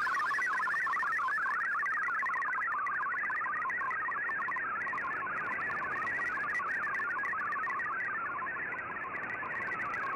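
MFSK digital-mode data signal from a shortwave broadcast, heard through the receiver's audio: a steady warble of rapidly hopping tones packed between about 1 and 2 kHz, carrying text that Fldigi is decoding.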